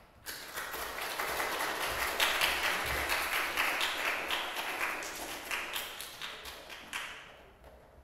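Small audience applauding, many hands clapping together; the clapping starts just after the beginning, swells, and dies away near the end.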